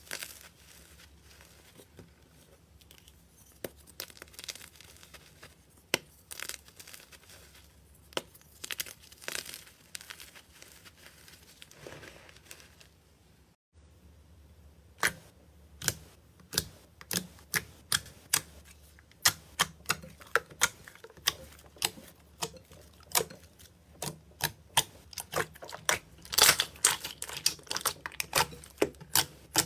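Hand squeezing and poking slime, making sticky clicks and crackles. After a short break about 14 seconds in, the clicks come more regularly, one or two a second, and are loudest near the end.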